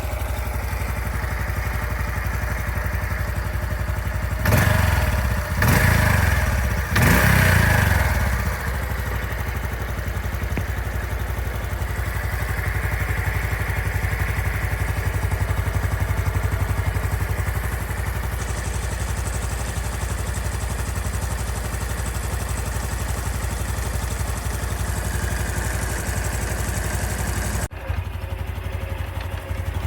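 Honda Super Cub C125's air-cooled single-cylinder four-stroke engine idling, blipped three times about five to eight seconds in, then settling back to idle. The owner runs it to check a 'kata-kata' rattling noise that he hears at every time of running except right after a ride.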